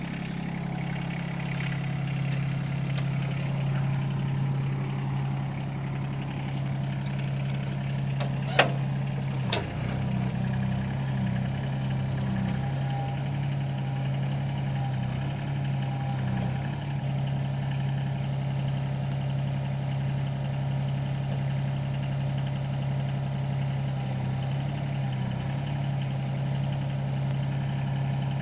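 Engine idling steadily, with two sharp clicks about a second apart near the middle.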